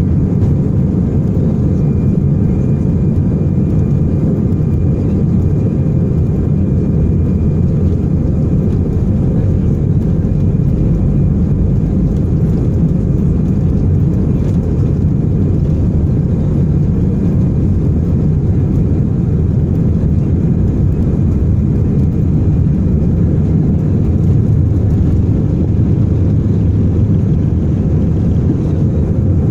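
Airbus A319-100 jet engines running at takeoff thrust, heard from inside the cabin as a loud, steady low rush during the takeoff run.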